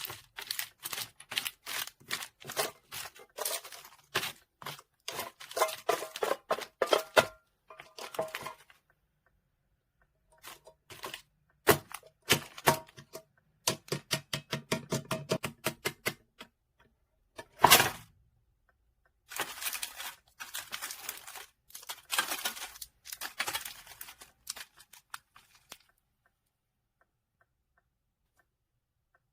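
Packaging being handled and opened by hand: rapid clicks, taps and crinkling, with tearing, in bursts separated by short pauses. It stops a few seconds before the end.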